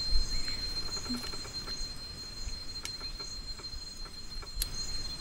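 Insects calling: a steady high whine with a regular pulsing chirp over it. A couple of light clinks of spoons against bowls.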